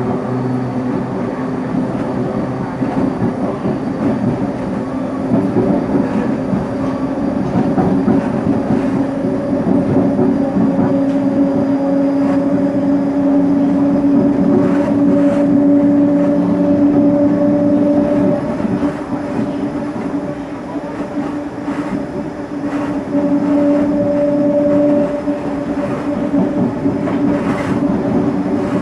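CPTM Série 1700 electric train running on the line, its motors giving a steady hum whose pitch creeps slowly upward, fades about two-thirds of the way through and briefly returns, over wheel rumble and scattered clicks from the track.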